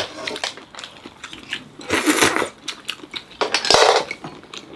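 Spoons and chopsticks clinking against bowls and dishes at a meal table, a quick run of small clicks and taps, with two louder, longer noisy sounds about two seconds and three and a half seconds in.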